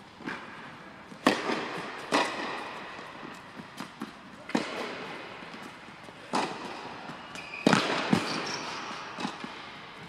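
Tennis rally on an indoor court: sharp racket strikes and ball bounces a second or two apart, each ringing on in the echo of the big hall.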